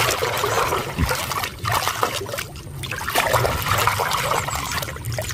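Water sloshing and splashing in a plastic tub as a hand swishes and scrubs a muddy toy under the surface, in uneven surges.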